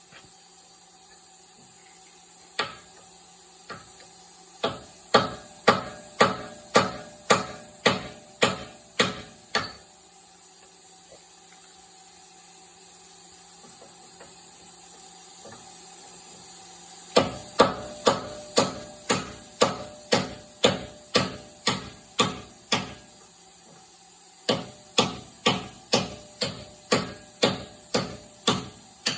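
Hammer blows ringing on steel as grooved, heat-shrunk steel bushings are driven out of a heavy-machinery pin bore with a big bolt. Three runs of steady strikes, about two a second, with short pauses between them.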